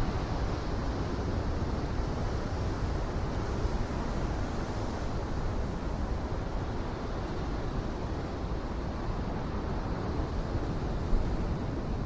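Pacific surf washing over a rocky shore: a steady rush of waves with a heavy low rumble underneath.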